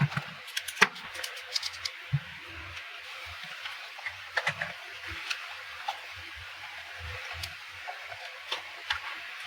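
Irregular sharp clicks and taps with a few dull knocks, as of small plastic parts being handled and worked by hand, over a steady hiss.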